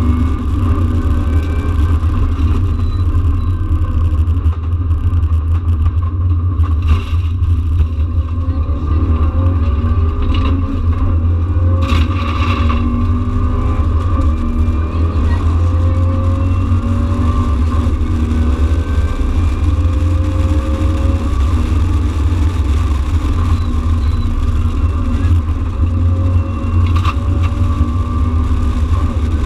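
Subaru Impreza rally car's flat-four engine heard from inside the cabin at speed, its revs repeatedly climbing and dropping through gear changes over a steady low rumble of road noise. A few sharp knocks cut through.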